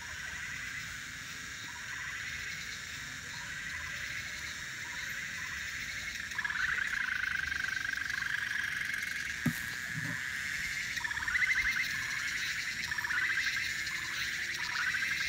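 A chorus of repeated trilling animal calls, louder from about six seconds in, over a steady high hiss. There is a sharp tap about nine and a half seconds in.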